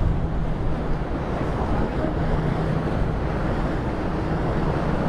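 Passenger ferry underway: a steady engine hum with a faint low drone, under wind buffeting the microphone and rushing water.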